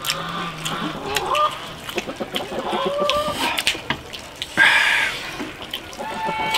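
Farm poultry calling, with chickens clucking in short calls and one louder, longer call about four and a half seconds in. Light clicks of chopsticks against bowls come in between.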